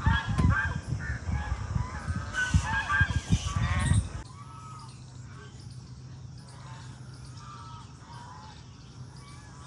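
A flock of waterfowl calling loudly with many overlapping calls. About four seconds in the sound cuts abruptly to fewer, fainter calls over a low steady hum.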